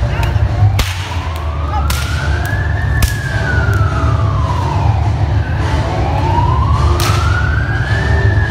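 Siren wailing in slow rises and falls, two full sweeps, over a steady low rumble, with a few sharp cracks along the way.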